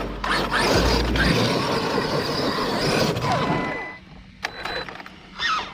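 Arrma Kraton 8S EXB 1/5-scale RC truck running, its brushless motor whining with a rush of tyre and drivetrain noise, which drops off suddenly about four seconds in as the truck stops. A few sharp clicks and one short burst of motor sound follow near the end.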